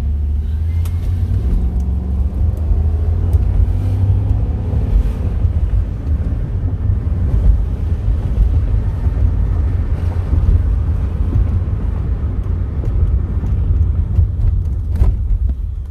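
2006 Chevy Impala SS being driven: a steady low rumble of engine and road noise, with a slight rise in pitch a couple of seconds in. The grinding of a bad wheel hub is absent now that the hub assembly has been replaced, and the car runs quiet.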